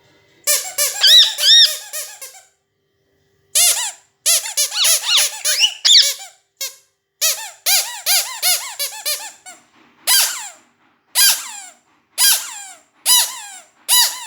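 Pet parrot whistling in quick runs of short, squeaky, rising-and-falling notes with brief pauses between runs. Toward the end it gives single downward-sliding calls about once a second.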